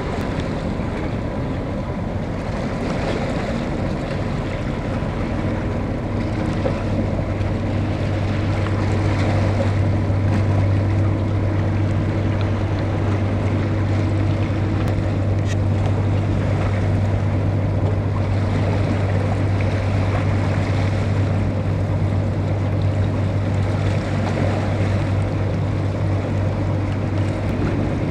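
Low, steady drone of a large passing ship's engines carried across the water, growing stronger a few seconds in. Under it is a hiss of wind on the microphone and small waves.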